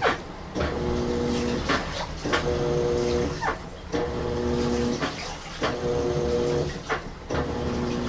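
Old top-loading washing machine washing a duvet. The motor's whine runs for about a second, stops, and starts again roughly every second and a half as the wash action turns one way and then the other. Water sloshes and swishes between the strokes.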